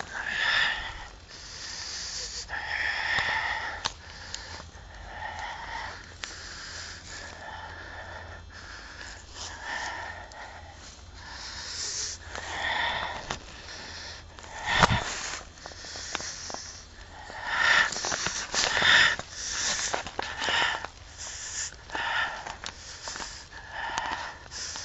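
A person breathing hard close to the microphone, ragged wheezing breaths in and out every second or two, with one sharp knock about fifteen seconds in.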